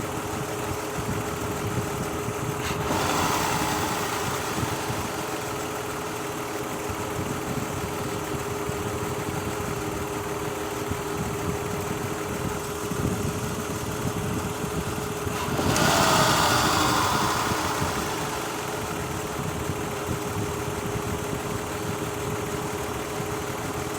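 Mazda Tribute's V6 idling with two ignition coils unplugged, running on four cylinders as part of a misfire check; the misfire is put down to leaking valve covers letting oil reach the coils and make them arc. The sound swells louder twice, about three seconds in and again past the middle.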